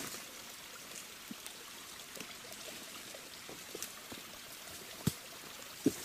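Steady, faint trickle of running stream water. Two sharp knocks near the end stand out above it.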